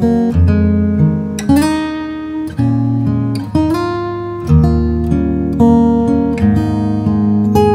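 Hsienmo Spring GA cutaway acoustic guitar played fingerstyle: chords and melody notes are plucked about once a second, and each one rings out and fades before the next.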